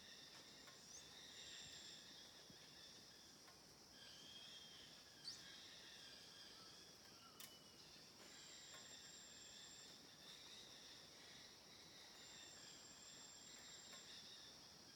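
Faint steady chorus of insects, with a few thin, high whistles lasting about a second each and one sharp click about seven seconds in.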